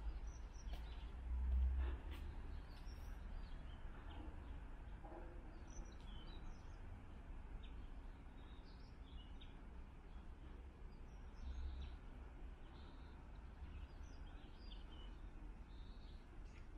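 Faint outdoor ambience: small birds chirping now and then over a low rumble, which swells briefly about a second and a half in and again near the middle. A few faint clicks.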